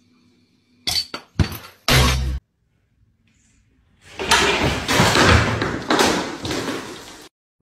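A few sharp knocks and then a heavy thud, followed a couple of seconds later by a few seconds of noisy clatter with more knocks that fades out and stops abruptly.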